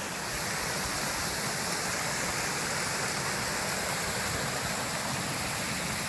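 Small waterfall and its stream, swollen by rain, rushing steadily over rocks.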